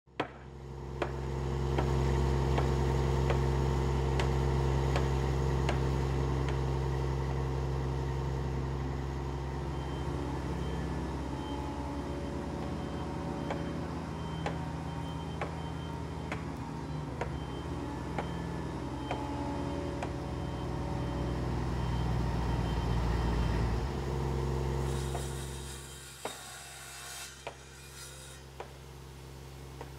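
A heavy diesel engine runs steadily with a deep hum, and light clicks come every second or two. Near the end the engine drops off and fades away, leaving a few knocks.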